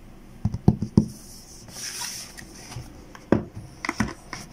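Cardboard graphics-card box being handled: a few sharp knocks in the first second, a scraping rub around two seconds in, then more knocks a little after three and four seconds.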